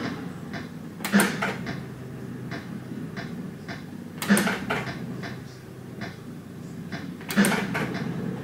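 Elam Crazy Deal fruit machine playing three games in a row. Each game starts with a loud clack as the four reels kick off, followed by a run of lighter clicks as the reels spin and stop one after another. A steady low hum runs underneath.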